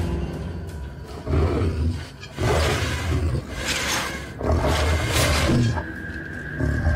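Werewolf growls and snarls, a creature sound effect, coming in about four rough bursts of around a second each.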